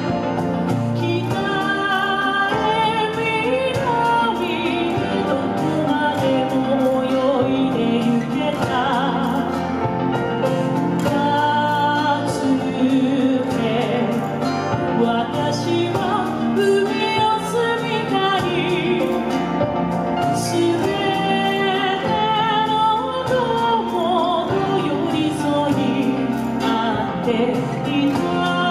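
A woman singing a song into a microphone, amplified through a PA, over recorded instrumental accompaniment; her long held notes waver with vibrato.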